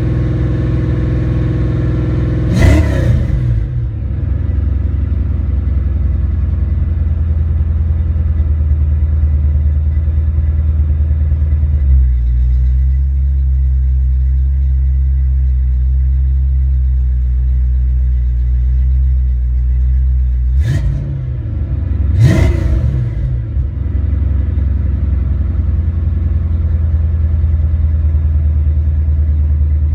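Ford Mustang 5.0 V8 idling steadily, with the throttle snapped open twice, about two and a half seconds in and again near twenty-two seconds. Each time the revs climb briefly and fall straight back to idle. This is a test run of a rebuilt A9P engine computer, checking that the engine revs without breaking up.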